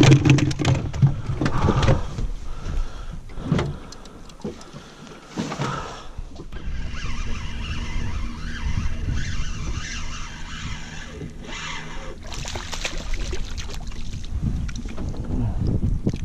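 A few clicks and knocks of gear being handled at the start, then a steady low rumble of wind on the microphone over open water.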